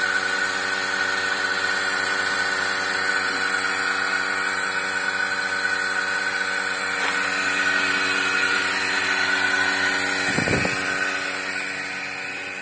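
Milking machine's vacuum pump unit running steadily with an even mechanical hum and a high steady whine, fading slightly near the end. A brief low bump sounds about ten seconds in.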